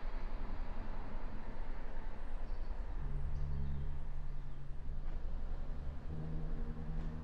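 Ambient background music: a low, steady rumbling drone, with long held low notes coming in about three seconds in and another layer about six seconds in.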